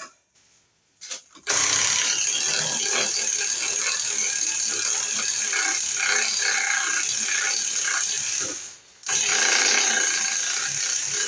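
A loud, rattling mechanical noise from a tool or machine running, in two runs: a long one of about seven seconds, a brief stop, then a shorter one.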